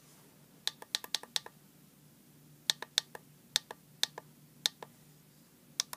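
Buttons on a handheld oscilloscope being pressed over and over to step its timebase: sharp clicks, first a quick run of about six about a second in, then a dozen more at a slower pace, many in pairs.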